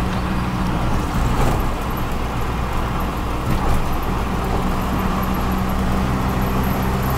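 Autorickshaw engine running steadily while the vehicle drives along, heard from inside the cabin, with a constant rush of road noise.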